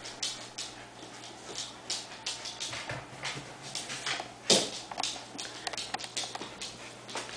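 An elkhound's claws clicking and tapping on a hardwood floor as it moves about, with one louder knock about four and a half seconds in.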